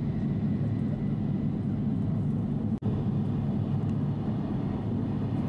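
Steady low rumble of a Tohoku Shinkansen train running at speed, heard inside the carriage, with a split-second dropout about three seconds in.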